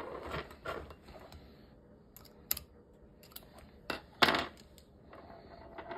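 A few scattered sharp clicks and knocks of small brass hose fittings and a metal gasket pick being handled and set down on a wooden table, the loudest knock about four seconds in.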